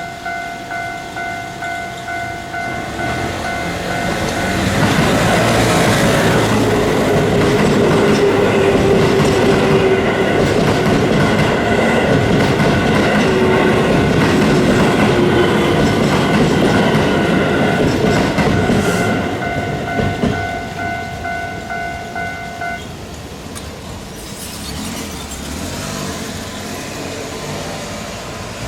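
A level-crossing alarm bell rings steadily and repeatedly while an electric train passes over the crossing, loudest for about fifteen seconds in the middle. The bell stops a few seconds after the train noise fades.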